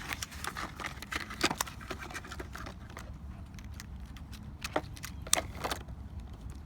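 Contact lens packaging being handled: scattered small clicks and rustles, with a few sharper clicks about a second and a half in and around five seconds in.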